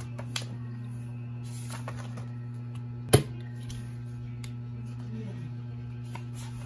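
Paper pages of a spiral-bound notebook being turned by hand: light rustles and a sharp page snap about three seconds in, over soft background music and a steady low hum.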